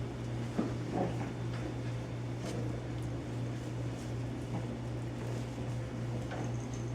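Young puppies at play, making a few brief scuffling sounds over a steady low hum.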